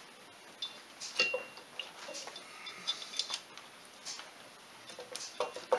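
Scattered metallic clicks and taps, some ringing briefly, as a Polaris 500 ATV's cylinder head is worked into place on the engine by hand. The strongest clinks come about a second in and near the end.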